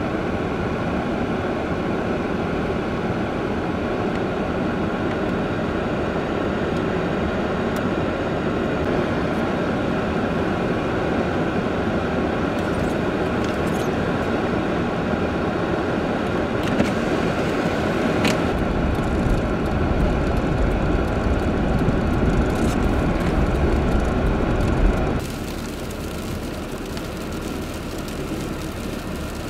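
Diesel engine of a snow plow dump truck running steadily at idle, with deep rumbling gusts of wind on the microphone for several seconds past the middle. The sound cuts abruptly to a quieter, steady truck engine near the end.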